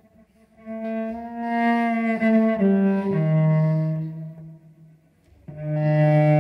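Solo cello, bowed, playing a slow phrase of sustained notes that step downward in pitch. After a short pause, a new long low note begins near the end.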